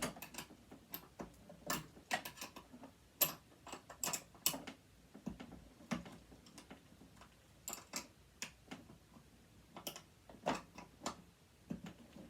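Irregular small clicks and taps of tools and parts being handled while a sewing machine is taken apart, unevenly spaced, a few every second.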